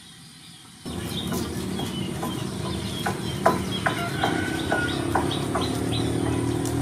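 Short, high animal chirps repeated about three times a second over a steady low rumble. The sound starts abruptly about a second in.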